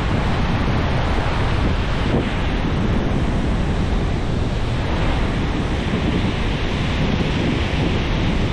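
Ocean surf breaking and washing around the legs in shallow water, with wind buffeting the microphone in a steady low rumble.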